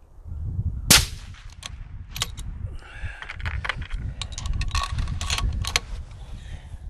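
A single rifle shot from a 6mm ARC bolt-action rifle about a second in. It is followed by sharp metallic clicks and rattles as the rifle is handled and worked for the next round.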